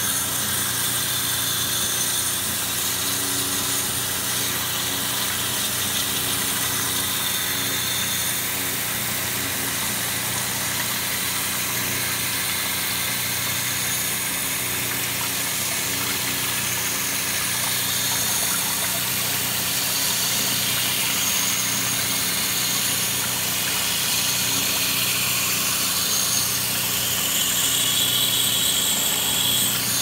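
Pressure-washer pump running with a steady hum under the even hiss of a water jet spraying into an air-conditioner coil.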